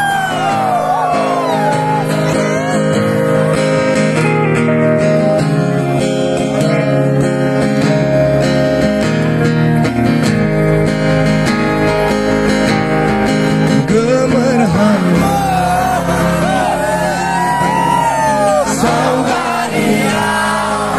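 Live band playing through a PA: acoustic guitar with electric guitar and drums. A man sings near the start and again from about two-thirds of the way through.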